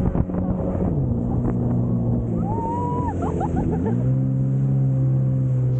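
Jet ski engine running under way, with water rushing past the hull. The engine note drops about a second in as the throttle eases, then rises again near four seconds and holds steady.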